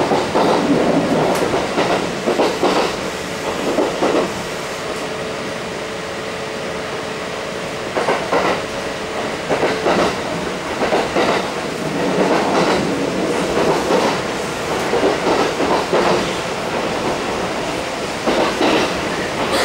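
Interior running sound of a Kintetsu 1230 series electric train: the wheels clack over rail joints, often in quick pairs, over a steady running rumble. A steady hum is heard through the first part, and the clacking eases off for a few seconds in the middle.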